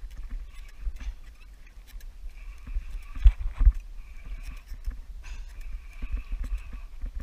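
Water lapping and knocking against a plastic fishing kayak's hull in a run of small bumps, with a spinning fishing reel whirring in bursts of about a second, several times, as it is wound.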